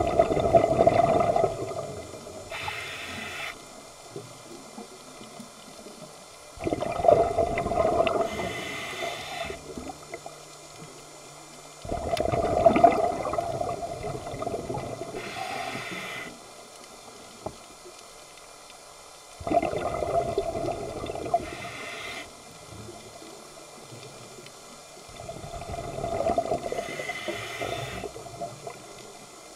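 Scuba diver breathing through a regulator: a gush of exhaled bubbles about every six seconds, five times, each followed by a short hiss.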